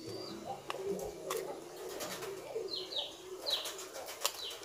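Pigeons cooing in the background with a soft, wavering, continuous call. From about halfway through there are several short, high, falling chirps, and a few light clicks and crinkles of a foil sachet being handled.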